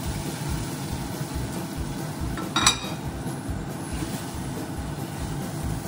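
Cookware handling as cooked tomatoes are tipped from a steel frying pan onto a ceramic plate on a gas stove grate, with one sharp clink of metal or ceramic about two and a half seconds in. A steady low background hum runs underneath.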